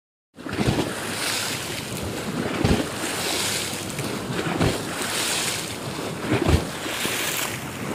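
Small waves lapping and washing at a gravel shoreline, swelling about every two seconds, with wind rumbling on the microphone in gusts.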